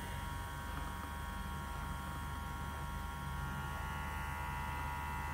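FOREO LUNA Mini silicone facial cleansing brush vibrating on its lower intensity setting. It gives a steady, fairly quiet buzzing hum made of several fixed tones.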